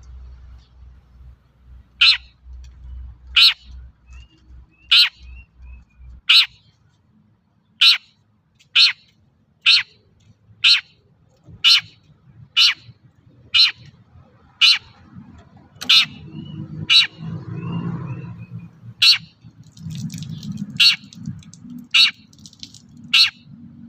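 Long-tailed shrike (cendet) giving a short, harsh call over and over, about once a second, some eighteen times in all.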